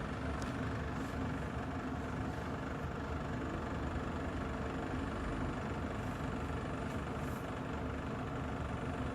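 Kolin air conditioner running with a steady, continuous rattle, the fault its owners are recording in the unit.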